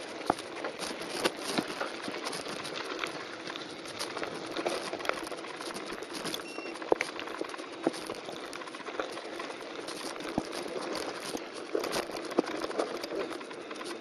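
Mountain bike tyres rolling and crunching over loose gravel and dry dirt on a descent, with a steady rattle of small clicks and knocks from the bike.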